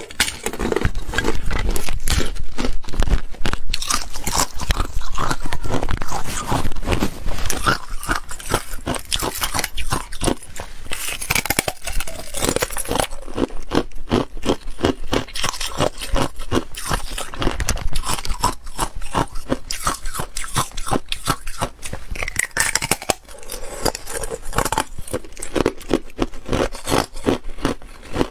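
Hard clear ice being bitten and chewed, close to the microphone: a rapid, continuous run of sharp cracking crunches.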